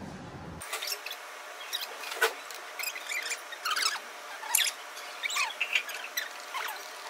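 A run of short, high-pitched squeaks and chirps in quick, irregular succession, each with a fast pitch glide, starting abruptly about half a second in.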